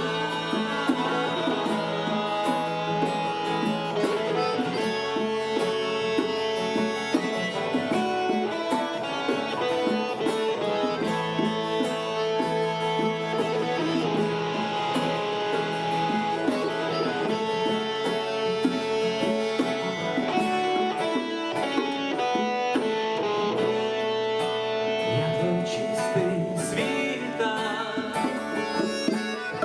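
Instrumental break of a worship song, led by plucked string instruments over sustained tones.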